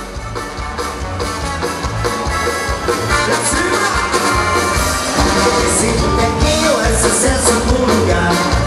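Live dance-band music with a steady beat, fading in over the first few seconds, with a singer coming in about three seconds in.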